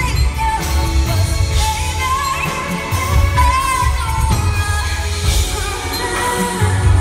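A female lead vocal sings a slow pop/R&B ballad live with a band, over heavy, boomy bass, as heard from within a concert audience.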